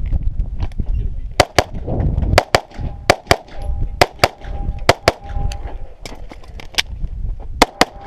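Pistol shots fired rapidly in a competition string, mostly in quick pairs, about fifteen in all starting a second and a half in. After several of them comes a ringing, typical of hits on steel targets.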